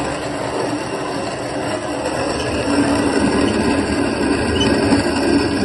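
Freshly roasted coffee beans being ground in an old-fashioned hand-cranked metal coffee mill: a steady grinding rattle that gets louder about halfway through.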